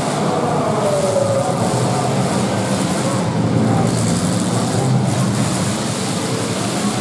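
Engines of several demolition derby cars running and revving together in a dense, steady mix as the cars push and ram each other on a dirt track.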